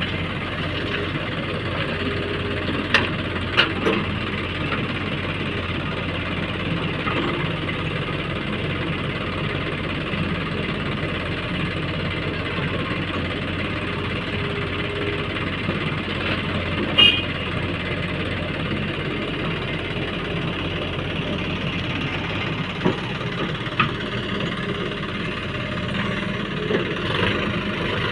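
Diesel engine of a JCB 3DX backhoe loader running steadily. A few short, sharp knocks stand out, two about three seconds in, one in the middle and two near the end.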